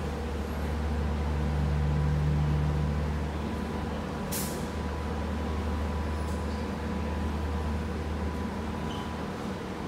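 Kawasaki-CRRC C151B electric multiple unit train humming steadily at the platform, with a short hiss of air about four seconds in.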